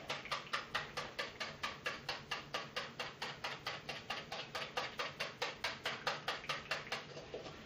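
Hand whisk beating an egg and oil mixture in a glass bowl: quick, even clicking strokes of the wire against the glass, about five a second, stopping just before the end.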